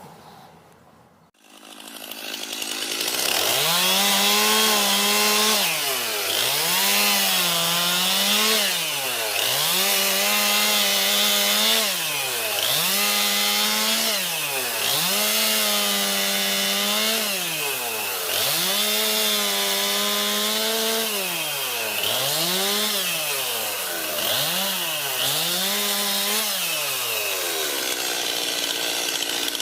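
Chainsaw starting up about two seconds in and cutting wood, its motor pitch dropping and recovering again and again as the chain loads and clears.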